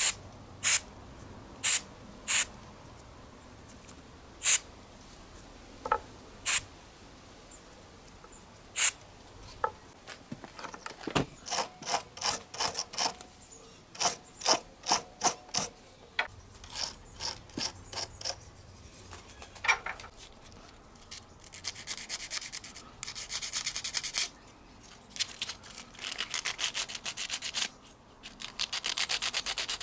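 Several short hisses of an aerosol solvent cleaner sprayed onto steel nuts and bolts, then a hand wire brush scrubbing a steel bolt in quick strokes that grow faster near the end, abrasive cleaning of the parts before chemical blackening.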